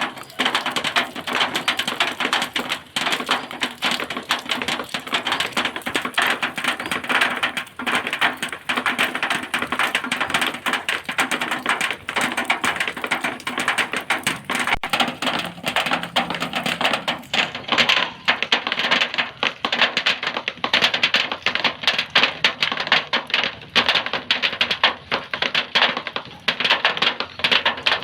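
Rain falling on a zinc sheet: a dense, unbroken patter of rapid metallic taps, steady in level throughout.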